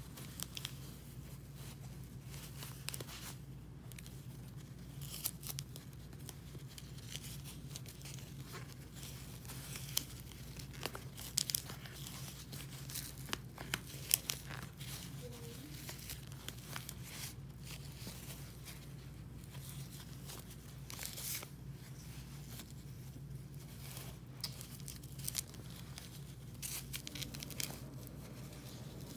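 Red cloth and thread being handled and wrapped by hand, making soft fabric rustles and scattered small clicks and snaps, over a steady low hum.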